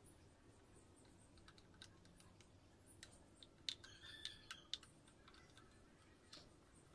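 Faint metallic clicks and light taps from the hand-handled underside mechanism of a Singer 1288 sewing machine, with a quick run of sharper clicks a little past halfway.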